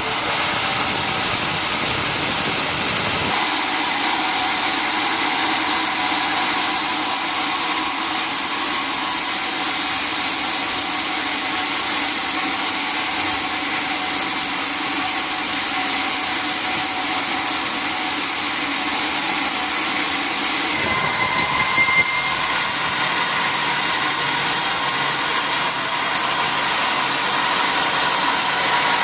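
Sawmill machinery running with a loud, steady mechanical noise. The low rumble drops away about three seconds in, and a brief high whine sounds around twenty-one seconds in.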